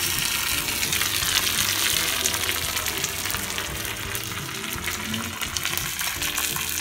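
Tadka sizzling: mustard seeds and fresh curry leaves frying in hot oil in a small tempering ladle, a steady crackling hiss that eases a little after about three seconds.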